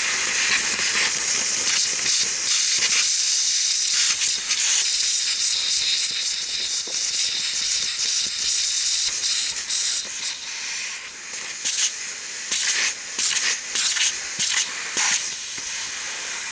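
Brushing and scraping at crusted metal, a scratchy hiss that is steady at first and breaks into separate irregular strokes after about ten seconds.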